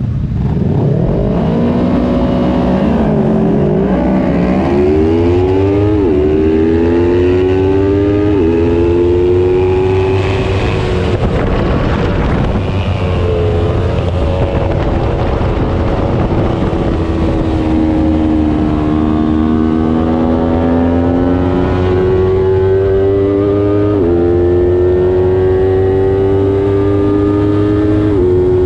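Small-displacement road-racing motorcycle engine at race pace: the revs climb and drop abruptly several times as it shifts up through the gears, with a dip and recovery early on as it slows for a corner and pulls away again.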